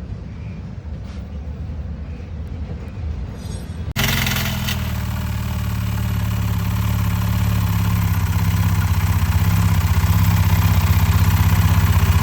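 Bajaj auto rickshaw's engine running on test after a timing chain repair. It runs at a steady low level at first, then about four seconds in it gets suddenly louder and keeps building slowly.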